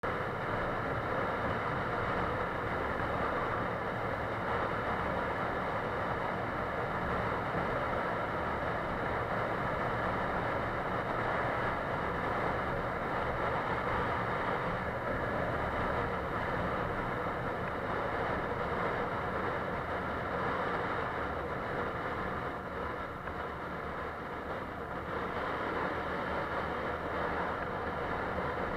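Motorcycle engine running and wind rushing past the microphone while riding at a steady road speed, the noise easing slightly for a few seconds about two-thirds of the way through.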